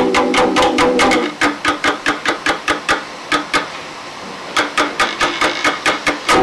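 Live band music in mono from a cassette tape rip. The sustained chords drop out about a second in, leaving sharp percussive taps about four to five a second, which ease into a softer lull around the middle and then pick up again; the full band comes back in at the end.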